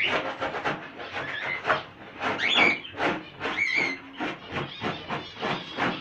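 Brisk rhythmic scrubbing strokes, about four to five a second, while cleaning out bird cages. A small bird calls twice in the middle.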